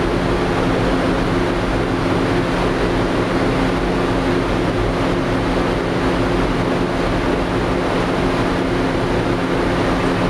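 Aluminum stack melter furnace running: a steady, loud roar with a constant low hum underneath.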